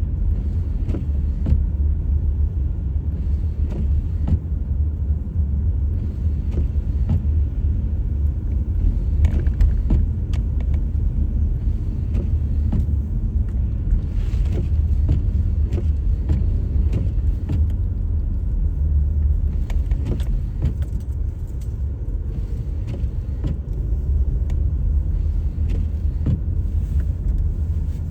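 Car driving on a snowy road: a steady low rumble of engine and tyres, with scattered light clicks and rattles throughout.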